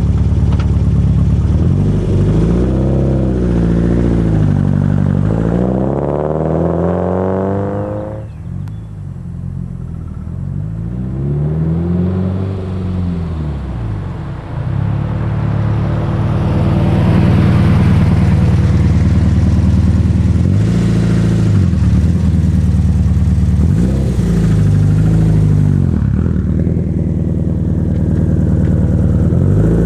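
Engine idling and being revved about six times, the pitch rising and falling back each time, with a knock that the uploader presents as piston slap.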